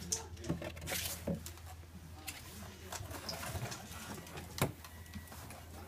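Light rustling and tapping of a paper box as a pet pushes into it, with one sharp tap about four and a half seconds in, over a low steady hum.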